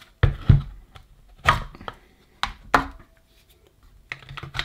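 The plastic housing of a Metabo 18 V cordless drill battery pack being handled and pulled apart: about five sharp plastic knocks and clacks, then a quick run of small clicks near the end.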